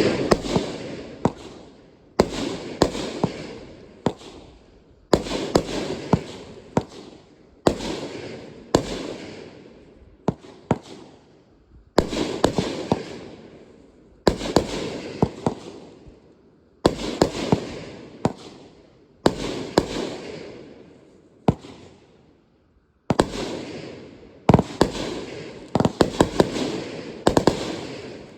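Consumer aerial fireworks going off in a steady series, a sharp bang about every two seconds, each trailing off in crackle before the next.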